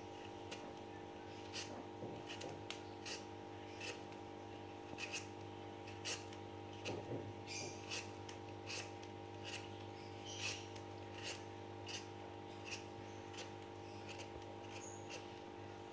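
Y-shaped vegetable peeler scraping the skin off a green kedondong (ambarella) fruit in short, repeated strokes, about one every 0.7 seconds. A steady hum runs underneath.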